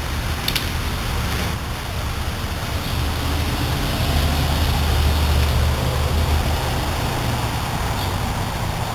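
Steady low background rumble with a hiss, swelling in the middle, and two sharp clicks: plastic tent clips snapping onto the fiberglass poles, about half a second in and near the end.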